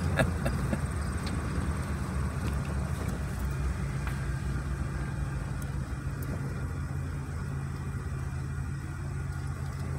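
Pickup truck's engine and road noise heard from inside the cab while driving, a steady low rumble that eases slightly toward the end.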